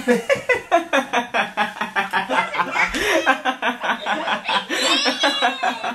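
Young men laughing hard together: a fast, unbroken run of ha-ha pulses, about four to five a second.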